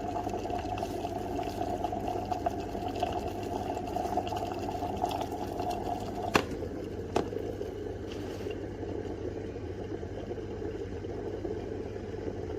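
Small foldable electric travel kettle heating water: a steady rumbling hiss over a low hum, with two sharp clicks about six and seven seconds in.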